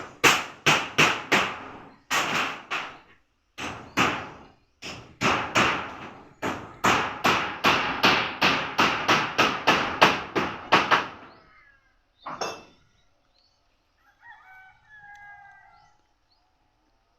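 Hammer blows in quick runs of about three a second, with short pauses between runs, for about eleven seconds, then one more blow. A rooster crows faintly near the end.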